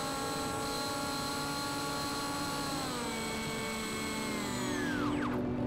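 Model plane's motor and propeller whining steadily, heard from the onboard camera. From about halfway the pitch sinks, then drops steeply and cuts out about five seconds in as the motor spins down.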